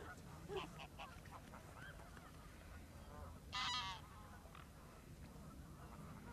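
A single loud, harsh waterfowl call lasting about half a second, a little past halfway, over faint scattered bird calls and a low steady rumble.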